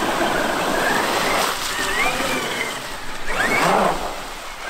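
Traxxas X-Maxx brushless electric RC monster truck driving through deep water: its motor whine rises and falls in pitch with the throttle over a steady splashing and spray of water. A little over three seconds in the whine climbs sharply with a big splash, the loudest moment.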